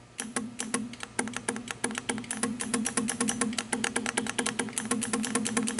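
Electric solenoid of a newly installed third-function hydraulic diverter valve on a John Deere tractor loader clicking rapidly, many clicks a second, over a steady hum, as its control button is held. It is energised with the key on and the engine off.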